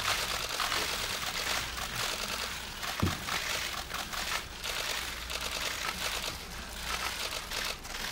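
Many press photographers' camera shutters clicking in dense, overlapping bursts, with a noisy hall behind them.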